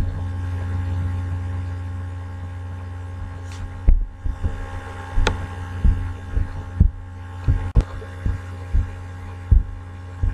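Steady low electrical hum, with irregular short low thumps and clicks starting about four seconds in, roughly one or two a second.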